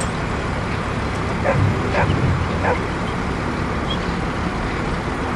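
A dog barks three times in quick succession, about a second and a half to three seconds in, over a steady low engine rumble from the heavy machinery working the mud.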